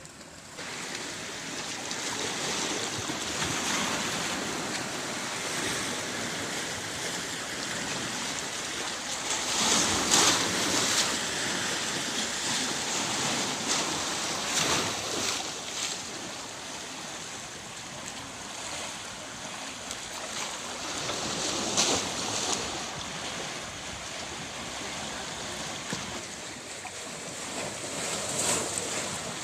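Sea surf washing onto the shore: a continuous rush of breaking waves that swells and ebbs in several surges, the strongest about a third of the way in.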